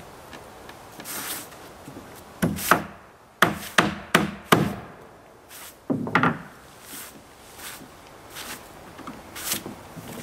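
Irregular hammer blows on wood, about eight knocks in two clusters, with softer scraping and rubbing of wood between them.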